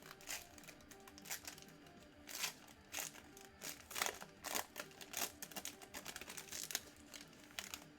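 Card pack being opened and handled: the wrapper crinkles and rustles in quick, irregular bursts, over quiet background music.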